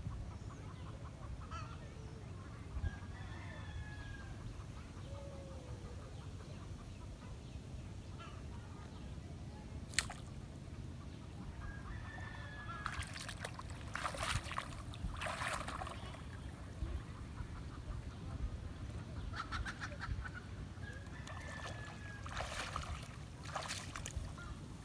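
Faint calls of domestic poultry, a few short calls scattered through, over a low steady rumble.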